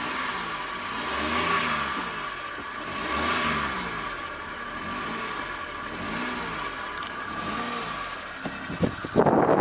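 Car engine revved again and again as the accelerator is pumped, its pitch rising and falling about once a second. Near the end come a few knocks and a sudden loud rushing noise.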